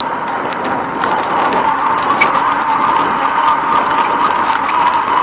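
Steady rushing tyre and wind noise of a bicycle rolling along a paved trail, picked up by a camera mounted on the bike, with faint irregular rattling clicks.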